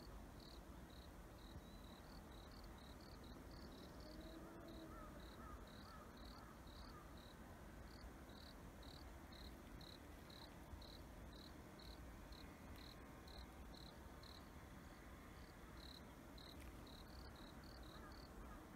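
Faint insect chirping, typical of crickets on an autumn evening: a steady string of short, high chirps, about two a second, over a low background hiss.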